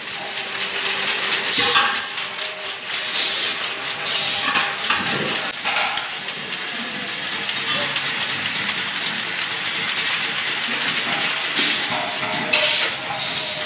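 Automatic LPG cylinder filling machines working: a steady hiss with repeated short, loud bursts of hissing air or gas as the filling heads act.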